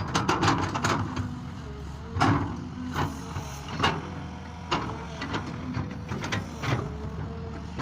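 Tractor engine running steadily in the field, with irregular sharp clanks and knocks from the machine and its implement.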